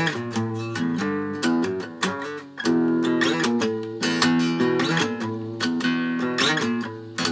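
Guitar played solo, with chords strummed and picked in quick, repeated strokes and no singing.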